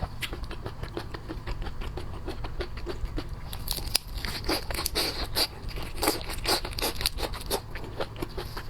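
Close-miked eating sounds: chewing with a steady run of small wet clicks, then louder, crisper crunching and smacking from about three and a half seconds in.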